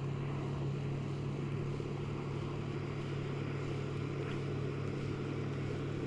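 A steady low motor-like hum over a faint background hiss.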